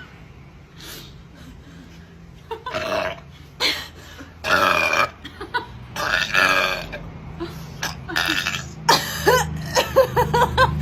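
A woman belching repeatedly: a few long, loud burps, then near the end a quick run of short burps in a row.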